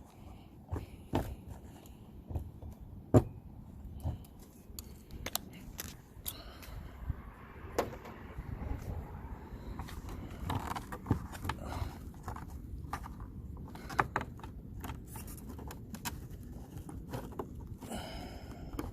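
Irregular clicks, taps and scrapes of a metal garage door key switch being worked by hand in its tight hole in the siding, with a jingle of keys.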